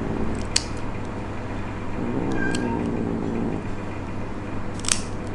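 A tabby cat meowing in a drawn-out, wavering complaint during a claw trim, a sign of the cat's dislike and fear of having its nails cut. Two sharp clicks of the pet nail clippers come, one near the start and one near the end.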